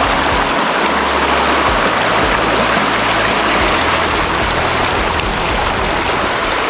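Clear mountain creek water rushing steadily over rocks, close to the microphone: a loud, even hiss of running water.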